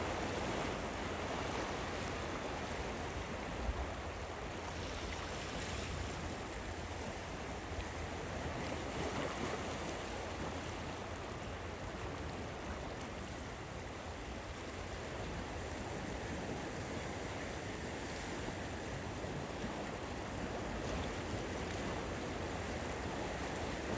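Lake Ontario waves washing onto the beach: a steady wash of surf that rises and eases gently, with a low wind rumble on the microphone underneath.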